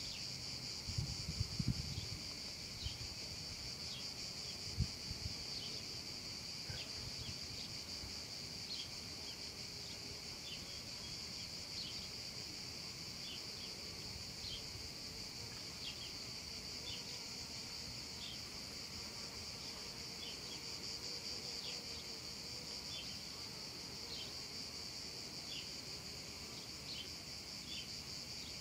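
Cicadas singing in a steady, high-pitched chorus, with short chirps scattered over it about once or twice a second. A few low thumps come in the first five seconds.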